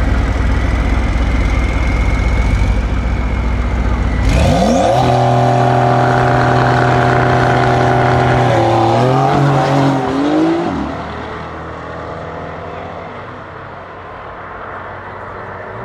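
A tuned Mercedes-AMG GT63 S 4Matic+ with its twin-turbo V8 and a Porsche 911 at a drag-race start line. A deep low rumble comes first; about four seconds in, an engine revs up quickly and is held at steady high revs on launch control for about four seconds. Near ten seconds in, the cars launch and the engine sound drops away fast as they pull off.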